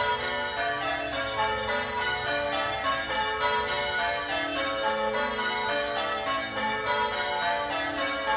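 Ring of six Gillett & Johnston church bells, cast in 1928 with the tenor in A, rung full circle with the strikes following one another in a steady, even rhythm, most likely in Devon call changes. The treble sounds loudest.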